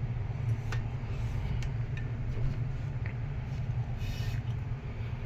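A few light metallic clicks and clinks from the metal table fan being handled, over a steady low hum.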